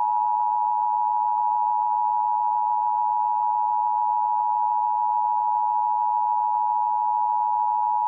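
Emergency Alert System attention signal: two steady tones, 853 Hz and 960 Hz, sounding together without a break. It is the alert tone that precedes an EAS message, here a Required Monthly Test.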